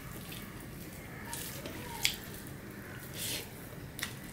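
Wet eating sounds: rice and curry squished together by hand, and chewing with wet mouth clicks, heard as a handful of short, separate squelches about a second apart.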